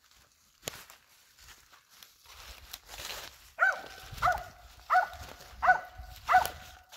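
Rustling in dry leaves, then a squirrel-hunting dog barking steadily: five sharp, evenly spaced barks, about one every 0.7 seconds, starting about halfway through.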